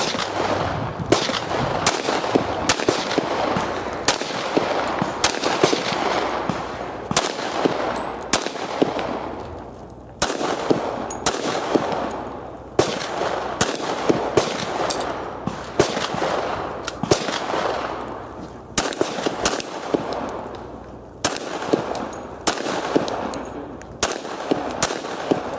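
Springfield XD(M) 5.25 pistol in .45 ACP fired in strings of shots, roughly two a second, each shot with a short echo off the range, with a few brief pauses between strings.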